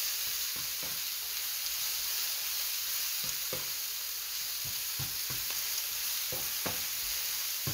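Blanched and drained brown mushrooms and red onion sizzling in oil in a nonstick frying pan over high heat, with irregular taps and scrapes of a silicone spatula stirring them.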